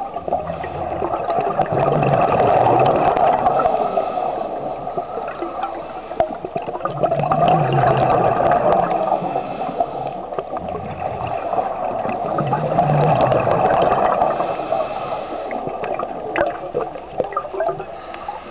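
Scuba diver's regulator releasing exhaled bubbles underwater, gurgling in three loud swells about five seconds apart, one per breath, between quieter stretches.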